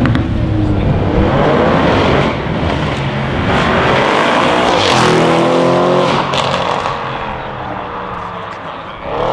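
Audi RS7's twin-turbo V8 with a decat Milltek straight-pipe exhaust accelerating hard. Its pitch climbs as it pulls through the revs twice, then it fades as the car drives off.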